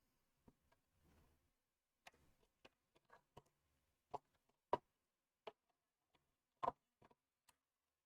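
Plastic Lego pieces clicking and tapping as they are handled and fitted together: a few faint clicks, then four sharper ones in the second half.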